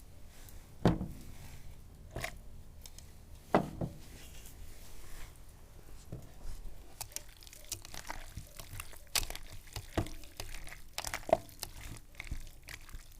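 Hand food-preparation sounds while meat and chicken are threaded onto skewers: scattered soft clicks, taps and small handling noises, with louder knocks about one second and three and a half seconds in.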